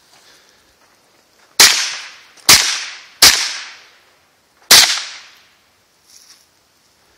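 Four shots from a Ruger 10/22 semi-automatic rimfire rifle fired at a steady pace at targets. The first three come under a second apart and the fourth a little over a second later. Each crack is followed by a short echo dying away.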